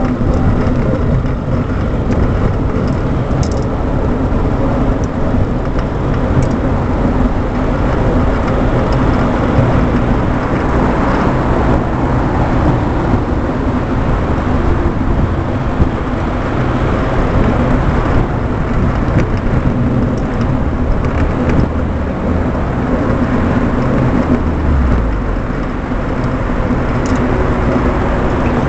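Steady noise of car traffic driving alongside, heard from a moving bicycle, with wind buffeting the microphone as a low, fluttering rumble.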